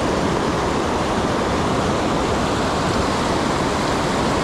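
Steady rush of whitewater rapids pouring over rocks close by, an even roar with no breaks.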